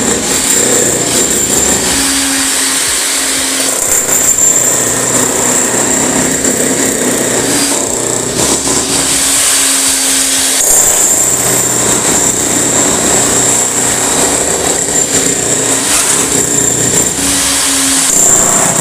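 Electric demolition hammer chiselling up old ceramic floor tiles and their cement bed, running loud and continuous with a steady high whine; the tone shifts a few times.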